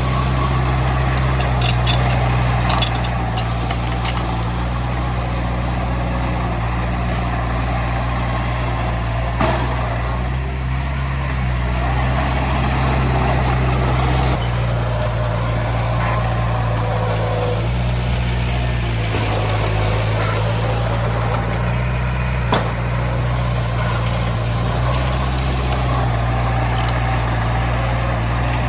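Heavy diesel engine of earthmoving machinery running steadily, its pitch shifting a few times, with a few sharp metallic knocks.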